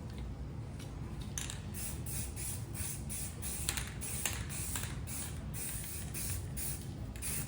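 Spray paint hissing in a series of short, irregular bursts as primer or paint is sprayed onto freshly wire-wheeled, bare-metal car pedal parts.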